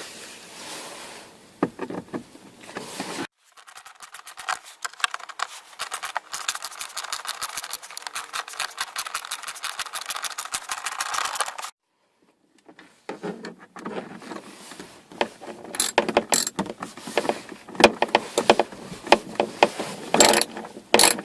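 A 1/4-inch socket ratchet clicking rapidly for several seconds while a fastener is worked. After a brief dropout it gives way to irregular clicks and knocks of the tools against the dash.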